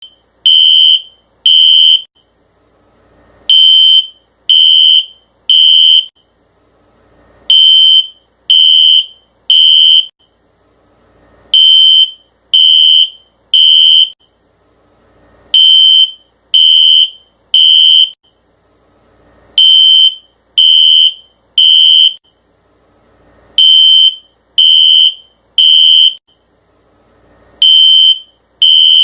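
Fire alarm sounding a loud, high-pitched beep in the temporal-three evacuation pattern: three short beeps about a second apart, then a pause, repeating every four seconds.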